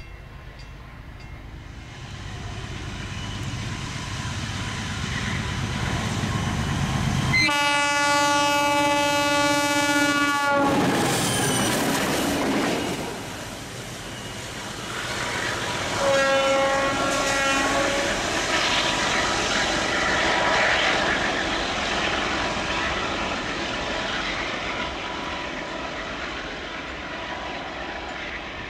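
A pair of MLW diesel locomotives approaching and passing, their engines running louder as they near. The horn sounds one long blast about a quarter of the way in and a shorter blast a few seconds later.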